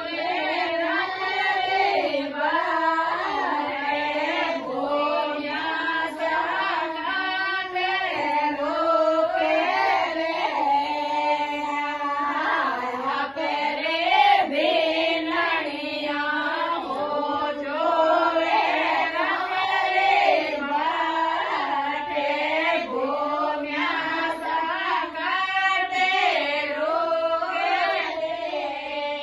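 A woman singing a Marwari devotional harjas, a rati joga night-vigil song, in one unbroken, melismatic melodic line.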